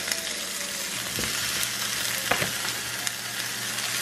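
Hot oil sizzling steadily in a frying pan around fried whole red snapper and sautéing onions, with a few light clicks of metal tongs against the pan as the fish is moved.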